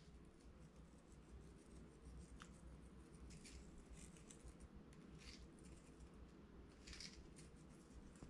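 Faint crisp ticks and rustles of coarse sea salt rubbed between fingers and falling onto raw fish fillets, a few soft grains' worth at a time, over a low room hum.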